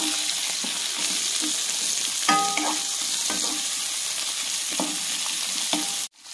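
Sliced onions, green chillies and tomato frying in coconut oil in a non-stick kadai, sizzling steadily while a wooden spatula scrapes and knocks against the pan over and over. A brief ringing tone sounds about two and a half seconds in, and the sound cuts off sharply just before the end.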